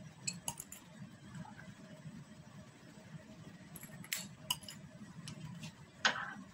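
Small glass clinks: a glass pipette tapping against glass test tubes standing in a wire rack while water is dispensed into them, a few scattered light clicks with a slightly louder brief clatter near the end, over a faint room hum.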